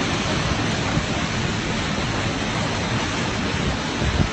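Strong wind blowing over the microphone: a steady rushing noise with a gusty low rumble underneath.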